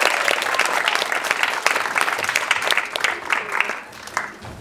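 Audience applauding, a dense patter of many hands clapping that thins out and fades about four seconds in.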